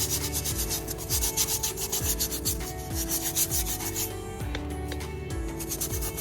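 Stiff brush scrubbing degreaser into caked grease on the Honda D16A6 engine, with rapid back-and-forth strokes that thin out about two thirds of the way through.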